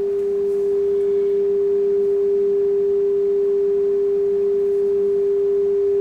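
Steady 400 Hz sine test tone from an audio signal generator, played through the Sonab R4000 amplifier during a channel-balance level check. It is one unwavering pitch at an even level.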